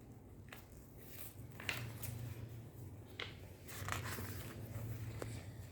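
Faint handling noises: a few short, soft clicks and rustles spread through, over a low steady hum.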